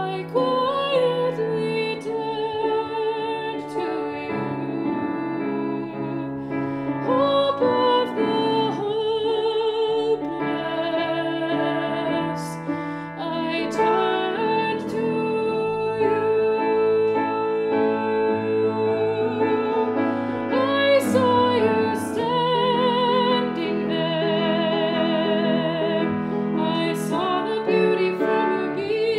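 A woman singing a solo with a wide vibrato over steady instrumental accompaniment.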